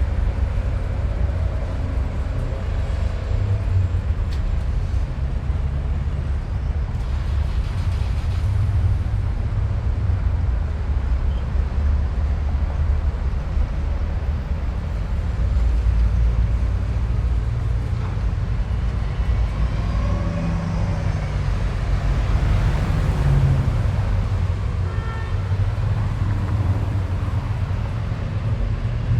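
City street traffic: a continuous rumble of passing cars and buses, with heavy deep low-end rumble. Around twenty seconds in, a few vehicle engines stand out, rising and falling in pitch as they pass or pull away.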